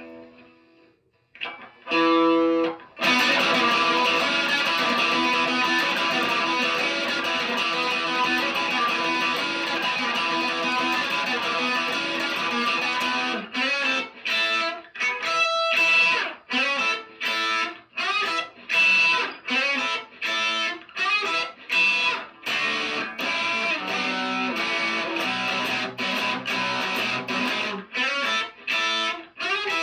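Electric guitar practice: after a short note, a chord is struck and left ringing for about ten seconds, then comes a run of short, separate chords with brief gaps between them.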